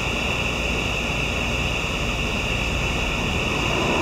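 Steady mechanical hum and hiss with a constant high-pitched whine, unchanging throughout.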